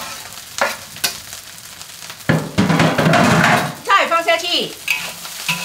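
Fried rice with egg yolk and taro being stir-fried in a wok, sizzling as a spatula scrapes and tosses it. There are a few short sharp scrapes at first, then a longer, louder stretch of scraping and sizzling from about two to four seconds in.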